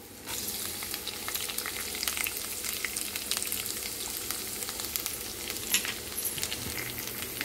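Chopped garlic sizzling and crackling in hot oil, frying with a tadka of tempering seeds, ginger pieces and dried red chillies. The sizzle jumps up just after the start as the garlic goes into the oil, then holds steady with many small pops.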